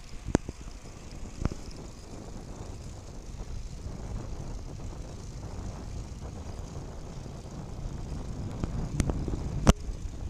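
Wind rumbling on the microphone and tyre noise from a bicycle rolling along a paved road, growing a little louder toward the end. Four sharp clicks sound through it, the loudest near the end.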